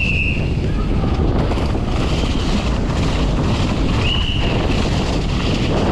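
Strong wind buffeting the microphone: a loud, steady low rumble and rush. Three short high tones sound about two seconds apart.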